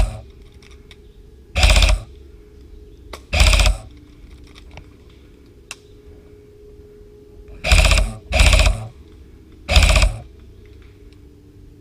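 Airsoft electric gun (a VFC Avalon VR16 Saber M4 AEG with a Titan MOSFET) firing short bursts on its 5-round burst setting. Each is a quick rattle of pellets lasting a fraction of a second. Five bursts are spread out, two of them back to back about two-thirds of the way through.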